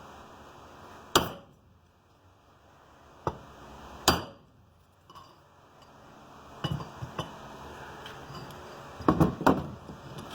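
Mini sledgehammer tapping a metal pipe to drive a new steering stem bearing down onto a 1998 Suzuki RM250's lower triple clamp. Single sharp metallic strikes come a second or two apart, the loudest with a short ring. Lighter taps follow, then a quick cluster of three near the end.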